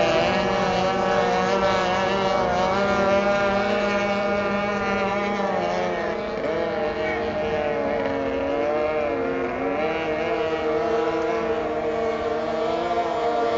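Racing outboard motors running at speed on the water, several engine notes overlapping, some held steady and others wavering up and down in pitch.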